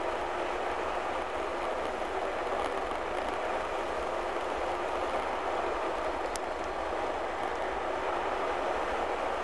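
Steady cabin noise of a vehicle driving at road speed, its engine and tyres on wet pavement, with a brief faint click about six seconds in.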